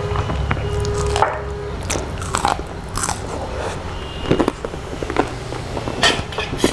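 A person biting and chewing fried food close to the microphone, with short crisp crunches several times through the chewing.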